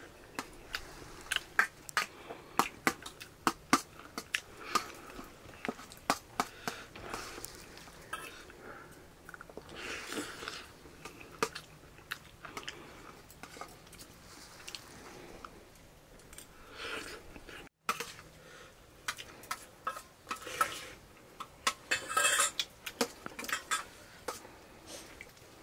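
A metal spoon clinking and scraping against a metal plate, over and over at an irregular pace, while rice is eaten, with some chewing in between.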